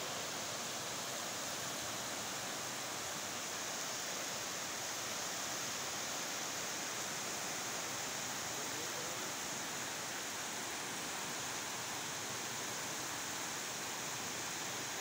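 Sea surf breaking and washing up a sandy beach, a steady even rush of water with no separate wave crashes standing out.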